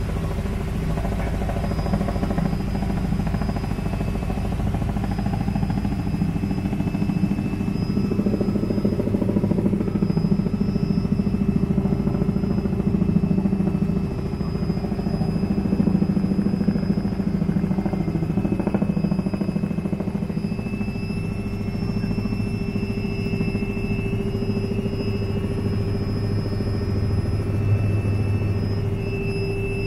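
Helicopter turbine engine and rotor running steadily, with a constant high-pitched turbine whine over a low drone.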